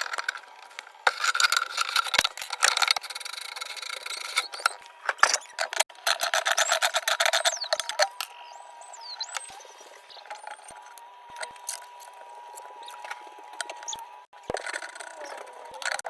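Hand tools working on metal plumbing fittings: irregular bursts of scraping and rubbing with scattered sharp clicks, busiest in the first half, then a quieter stretch with a faint steady tone.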